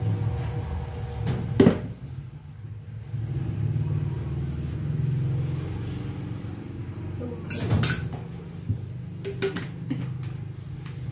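Dishes clinking and knocking against each other in a steel sink as they are scrubbed, with a sharp clatter about one and a half seconds in, a louder cluster of knocks near eight seconds, and a few lighter clicks after. A steady low rumble sits under it.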